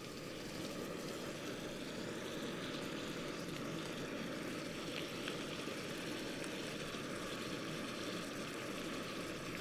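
Portable camp stove burner running steadily under a frying pan, with a few faint spatula scrapes in the pan about halfway through.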